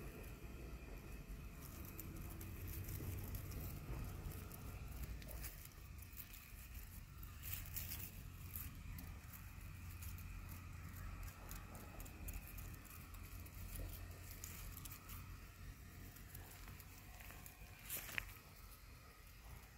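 Faint rustling and light crackling of dry grass stems and leaves as a small kitten paws and moves through dry weeds on bare soil, with a sharper crackle about eighteen seconds in.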